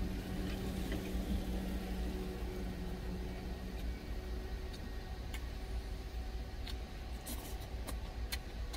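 Steady low rumble of an idling truck engine heard inside the cab, with a hum that fades after about three seconds. A few faint clicks in the second half, plausibly the plastic spoon tapping the glass food container.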